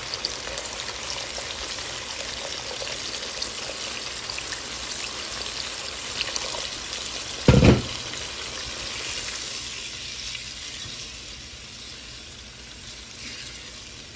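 Hot fried masala in a pan sizzling and hissing as water is poured in and stirred with a wooden spoon. The sizzle eases off over the last few seconds as the gravy turns watery. A short thump about halfway through.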